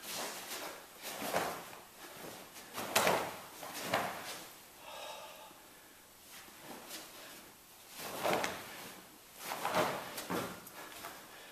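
Movement sounds of a karate kata performed barefoot: a handful of brief swishes from strikes, clothing and feet sliding on the mat, spread a second or more apart, with a quieter stretch midway.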